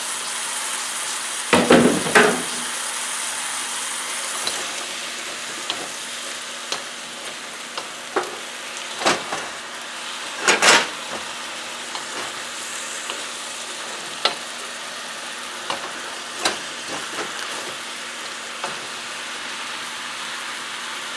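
Vegetables frying in a hot steel wok: a steady sizzle, with scattered knocks and scrapes of a wooden spoon against the wok as they are stirred, and a louder clatter about two seconds in and again about halfway through.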